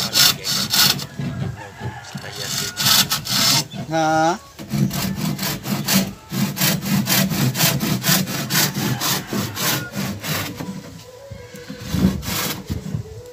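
Handsaw cutting a thin wooden batten with quick back-and-forth strokes. The sawing pauses about four seconds in while a rooster crows briefly, and it grows fainter near the end.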